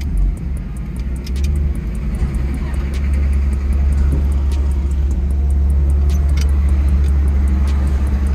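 Chevrolet Bel Air's engine running through its new stainless-steel exhaust while the car is driven on a test run after driveshaft repairs, a steady low rumble that gets louder about three seconds in as it picks up speed.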